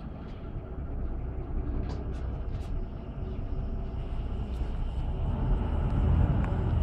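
Inside a Mercedes-Benz Conecto LF city bus on the move: its OM926LA diesel engine and ZF 6HP502 automatic gearbox are running with a steady low rumble that grows louder about five seconds in. A few light clicks come about two seconds in.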